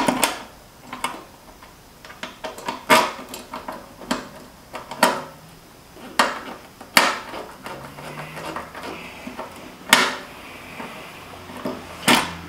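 Hand tools clinking and tapping against the steel bolts and bracket of a stainless steel flip-up license plate mount while its bolts are hand-tightened with a screwdriver and wrench. Irregular small metal clicks, with about six sharper clanks spread through.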